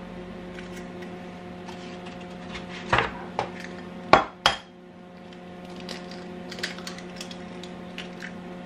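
Eggs being tapped against the rim of a small ceramic bowl and cracked open: a few sharp knocks around the middle, the two loudest close together. A steady low hum runs underneath.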